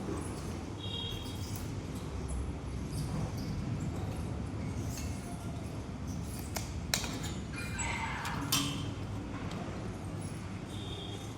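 Steady low background rumble with a few faint, short high chirps and two sharp clicks, about seven and eight and a half seconds in.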